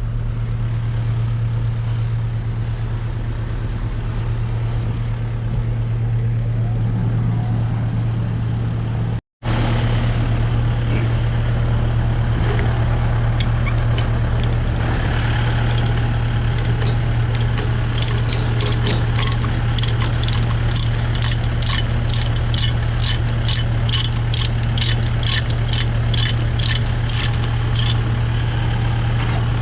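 Engine idling steadily, with a brief cut about nine seconds in. From about twelve seconds on, a regular mechanical clicking of roughly two clicks a second runs over it.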